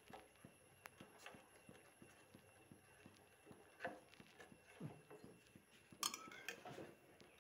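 Faint clinks and scrapes of a steel ladle stirring milky payasam in a stainless-steel pot, with a louder metallic clink about six seconds in.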